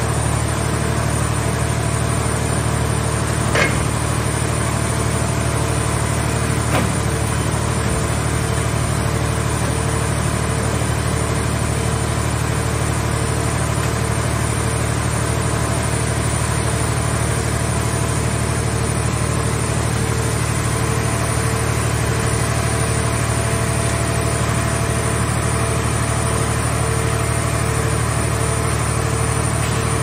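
Mobile car shell baler's engine and hydraulic power unit running steadily while its grab crane works, with two brief knocks about three and a half and seven seconds in.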